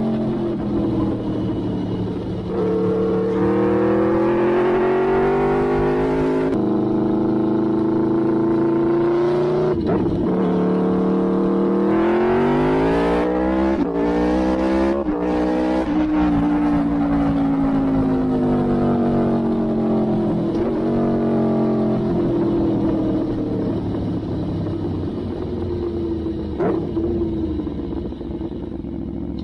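Aprilia Tuono V4 R's 1000 cc V4 engine through an Arrow GP race exhaust, ridden hard: the revs climb and snap back with quick upshifts several times in the first half, then the note falls slowly as the throttle is rolled off, with a single sharp crack near the end.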